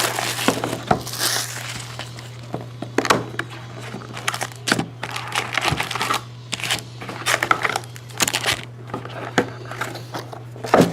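Plastic shrink-wrap crinkling and tearing, with irregular clicks and rustles, as a sealed box of hockey trading cards is unwrapped and opened. A steady low electrical hum runs underneath.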